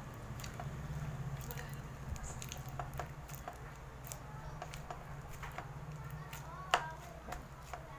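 Glue-based foam-bead slime squelching and crackling as it is kneaded by hand in a plastic bowl: a run of short wet clicks and pops, one sharper snap near the end, still sticky as activator is worked in. A steady low hum runs underneath.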